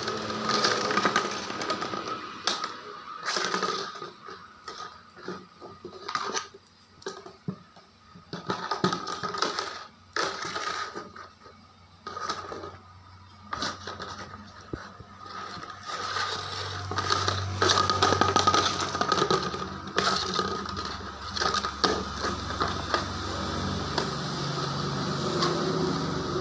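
Plastic bucket knocking, rolling and scraping on a hard concrete floor as a puppy pushes and noses it, in irregular knocks and scrapes. A low steady hum comes in about two-thirds of the way through.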